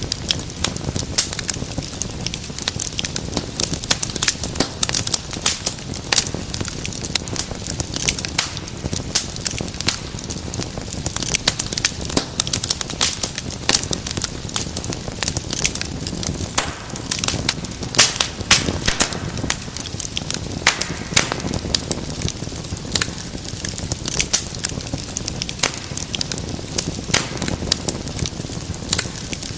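Wood fire in a fireplace crackling steadily: many sharp irregular pops and snaps over a low rumble of flames.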